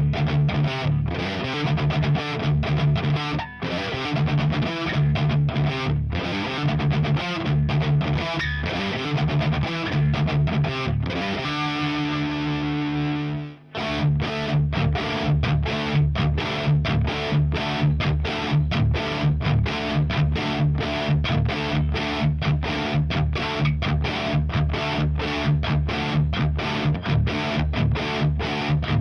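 Electric guitar, a 1980 Gibson Les Paul Custom with its stock T-Top humbuckers, played through a high-gain Diezel VH4 amplifier into a 4x12 cabinet with Celestion Vintage 30 speakers, playing a fast palm-muted chugging riff. About halfway through, a chord is left ringing for a couple of seconds, then choked off abruptly before the rapid chugging picks up again.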